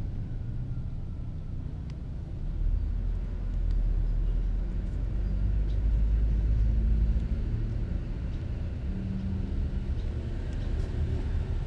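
A steady low rumble, loudest around the middle, with faint scattered clicks of a kitten chewing fish.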